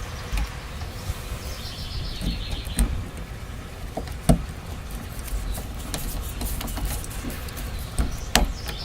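Scattered clicks and taps of a Phillips screwdriver and screws as the screws holding an outdoor shower valve insert are driven in and tightened, over a steady low rumble.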